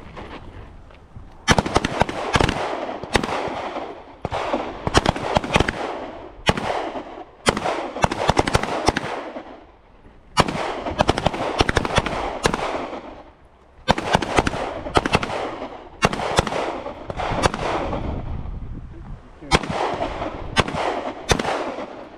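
Several handguns firing together in rapid, overlapping strings of shots, starting about a second and a half in, each shot followed by a long echo, with short lulls between strings.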